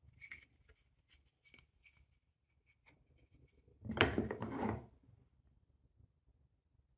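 Wooden Cuboro marble-run cubes handled in their cardboard box: light wooden clicks and brief scrapes, then about four seconds in a louder scrape lasting under a second as a block slides out against its neighbours.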